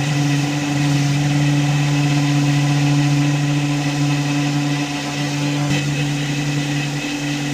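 An electric motor running steadily with a constant hum, typical of a workshop power tool.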